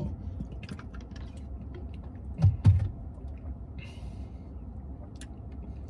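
A man drinking from a plastic bottle: scattered small clicks and quiet gulps, with two louder swallows in quick succession about two and a half seconds in.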